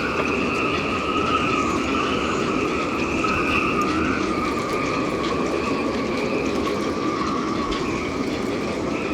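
Gale-force wind howling through the rigging of moored yachts: a steady rush of wind with two high whistling tones that waver slightly in pitch.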